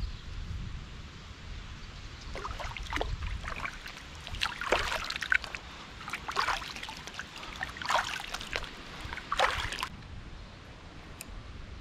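Shallow stream water splashing and sloshing around hands and bare feet, in a run of irregular splashes that stops near the end.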